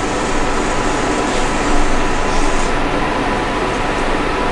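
Steady mechanical drone with a faint hum, even and unbroken throughout.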